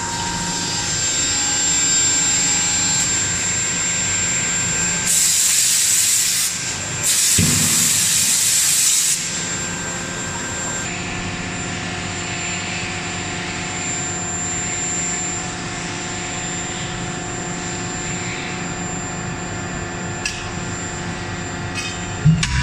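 Electro-hydraulic CNC forging hammer standing at idle, its hydraulic power unit running with a steady hum and a high whine. About five seconds in come two long hissing bursts of a few seconds each, and a sharp knock sounds near the end.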